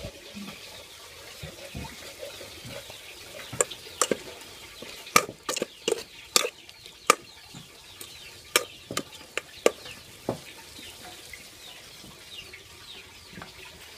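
A run of about a dozen sharp clicks and knocks, spaced irregularly through the middle of the stretch, over a steady background of faint bird chirping.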